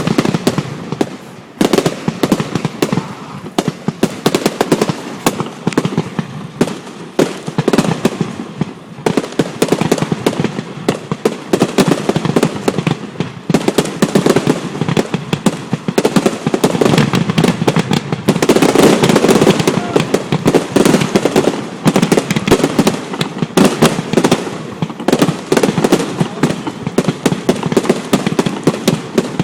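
Aerial fireworks bursting in rapid succession, dense overlapping bangs and crackles, with an even heavier barrage from about 17 to 21 seconds in.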